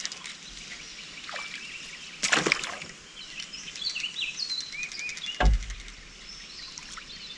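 A hooked bream (bluegill) splashing at the water's surface about two seconds in as it is played toward the boat, then a sharp thump against the boat a few seconds later. Birds chirp in the background.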